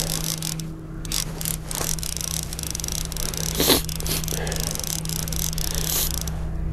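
Boat's outboard motor running at a steady trolling idle, with scattered clicking and scraping from a fishing reel being cranked while a hooked fish is fought.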